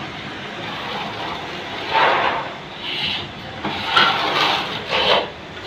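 Plastering trowel scraping over plaster of Paris on the corner of a concrete beam, in several strokes about a second apart, over a steady background noise.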